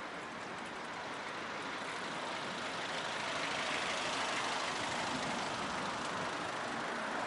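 Road traffic on a city street: the steady hiss of vehicle tyres and engines, slowly growing louder.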